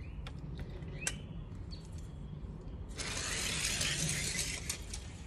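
A few sharp clicks and taps, then about three seconds in a sudden rattling rush of die-cast toy cars rolling down orange plastic Hot Wheels track, lasting about two seconds, after the cars are released from a ruler start gate.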